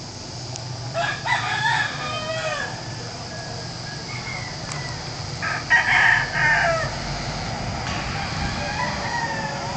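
Roosters crowing: two loud crows about a second and a half long, the first about a second in and the second about five and a half seconds in, then fainter crowing near the end.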